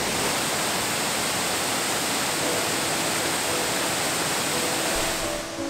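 Waterfall on the River Hepste (Sgwd Clun-gwyn) rushing steadily, running low after weeks without rain. Faint music comes in about halfway through.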